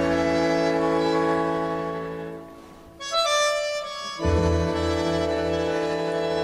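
Slow orchestral film music with held string chords and an accordion-like reed instrument; the chords fade out shortly before the middle, a brief thinner, higher phrase follows, and the full chords return after about four seconds.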